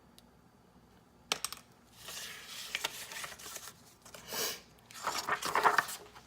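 Close handling noises: a sharp click a little over a second in, then irregular bursts of rustling and scraping, loudest near the end.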